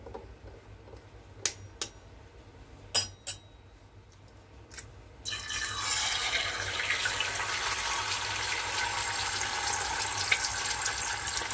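A few sharp taps, then a raw egg hits hot oil in an iron kadhai about five seconds in and sizzles loudly and steadily as it fries.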